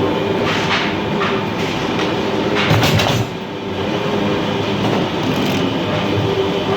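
Automatic krupuk (cracker) making machine running: a steady mechanical hum with continuous rattling, and a few louder clattering bursts in the first half.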